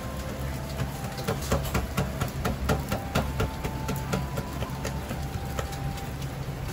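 Kitchen clatter: a quick run of sharp clacks and knocks, starting about a second in and lasting about three seconds, over a steady low machine hum.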